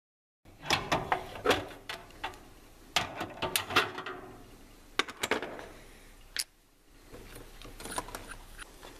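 Greenlee knockout punch being turned with an adjustable wrench to cut a hole through a drawer panel: a quick run of sharp metallic clicks and clanks from the wrench on the punch nut. After that come fewer clicks as the punch parts are taken apart and handled, with one sharp click past the middle.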